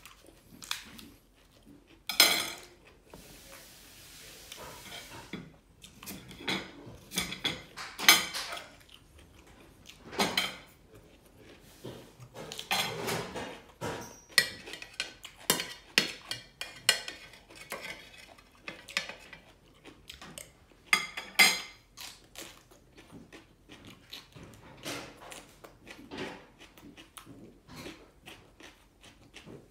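Knife and fork clinking and scraping against plates and a metal serving tray while someone cuts fruit and eats. The clinks come irregularly, with a few louder, sharper ones now and then.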